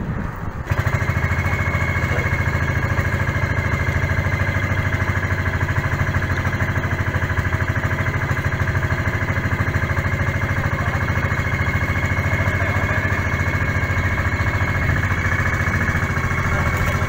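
Outrigger boat's engine running steadily with a fast, even pulse, cutting in abruptly less than a second in.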